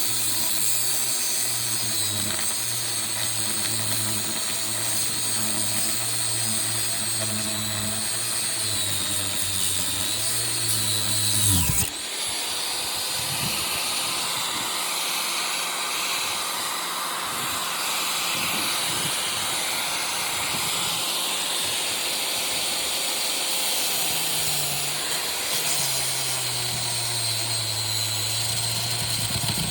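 Angle grinder running and cutting into metal parts of a window air conditioner, with a steady high whine. Near the middle the whine drops sharply in pitch, then picks straight back up.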